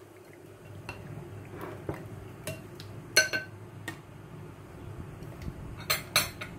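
Wooden chopsticks mixing marinating pork belly in a ceramic bowl, with a handful of sharp clicks of the chopsticks knocking against the ceramic, the loudest about three seconds in and two quick ones near the end.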